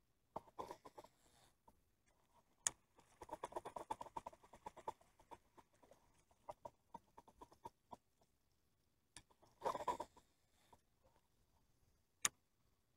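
Fishing reel being cranked in spurts, faint: runs of quick ticking, one fast stretch that slows to spaced ticks, with a couple of single sharp clicks.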